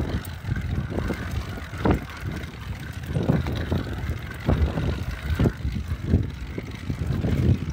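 Motorized bicycle's small engine running as the bike rides over rough dirt, with irregular thumps from the bumps and wind rumble on the microphone.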